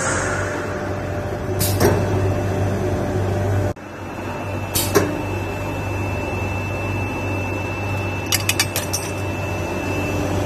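LPG-5 spray dryer running with a steady hum, joined by a thin high whine from about halfway. Sharp metal clinks as the stainless steel collection jar is unclamped from the cyclone, with a quick run of them near the end.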